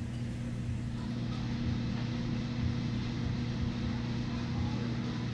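Steady low mechanical hum, even throughout, with no clear individual events.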